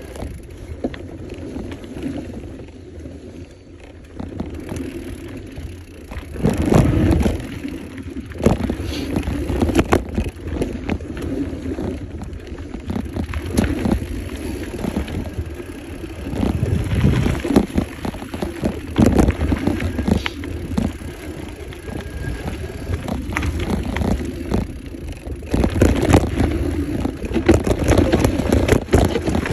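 Mountain bike riding fast down a dirt trail: tyres rolling over dirt and the bike rattling over bumps, with wind rushing on the microphone and louder stretches where the trail gets rough.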